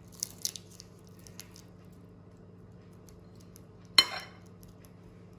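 Spoon clinking against a bowl and plate while coleslaw is spooned onto a jacket potato: a few soft taps, then one sharp metallic clink about four seconds in.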